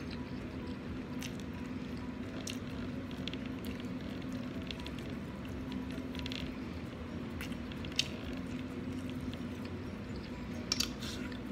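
Close-up eating sounds of a person chewing brown stew chicken with rice: soft wet mouth noises and a scattered series of short sharp clicks, the loudest about eight seconds in and a quick pair near the end, over a steady faint hum.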